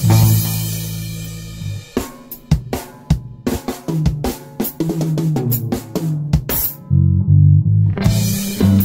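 Rock band on electric guitars, bass guitar and drum kit: a held chord rings out and fades for about two seconds, then the drum kit plays a break of separate hits with bass guitar notes under it, and the fuller band comes back in near the end.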